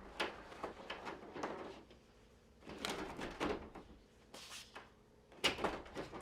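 An AI-generated sound effect playing back: irregular clusters of knocks, clacks and rattling scrapes, like a drawer or door being worked, in about four bursts.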